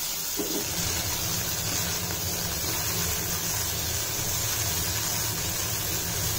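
Potato cubes sautéing in a nonstick pan with a soft, even hiss, over a steady low mechanical hum.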